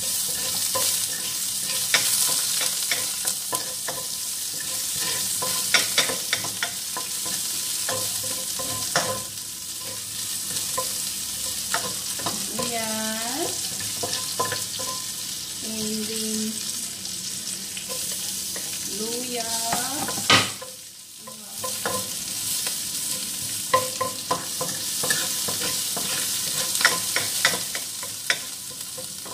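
Chicken and onion sautéing in oil in a stainless-steel pot, sizzling steadily while a wooden spatula stirs them, with frequent clicks and scrapes of the spatula against the pot. The sizzle drops away briefly about two-thirds of the way through.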